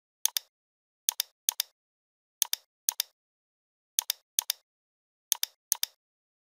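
Computer mouse clicks, nine sharp press-and-release pairs at uneven intervals of roughly half a second to a second, with dead silence between them.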